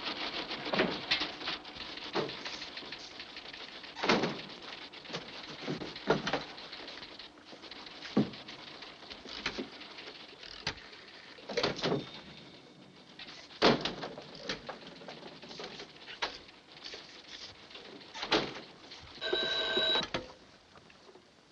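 Irregular clicks and knocks over a constant hiss. Near the end an old telephone bell rings once for about a second.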